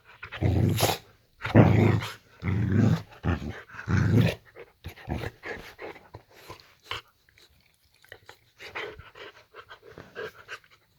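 Boxer dog growling and grumbling in four loud, deep bursts over the first four seconds or so, then fainter, scattered noises.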